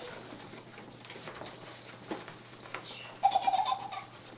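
Baby cinnamon capuchin monkey giving one short pitched call of under a second about three seconds in, over faint rustling and small clicks of play.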